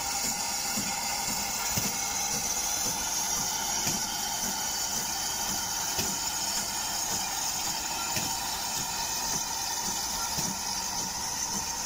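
GWR small prairie tank steam locomotive working slowly past with a train: slow, irregular exhaust beats over a steady hiss of steam.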